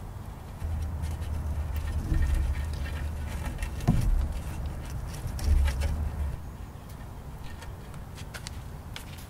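A twisted rope being worked against a wooden pole and a hanging clay bowl, with scattered small clicks and a brief creak about four seconds in, over a low rumble.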